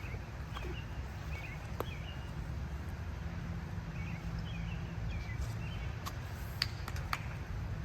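Outdoor ambience: a steady low rumble with a few faint bird chirps, and several sharp clicks, the loudest of them near the end.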